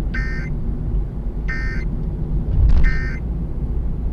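Emergency Alert System end-of-message code: three short, buzzy digital data bursts, each about half a second long and a little over a second apart, marking the end of the alert. A steady low rumble runs underneath.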